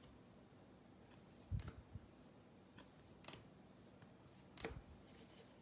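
Faint clicks and soft taps of a stack of baseball trading cards being handled, each card slid from the front of the stack to the back. A soft bump comes about a second and a half in and another near the end, with a few light clicks in between.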